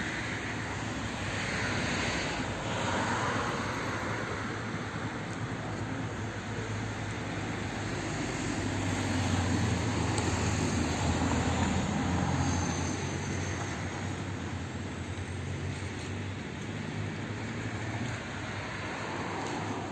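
Steady low engine drone that swells louder around the middle and eases off again toward the end.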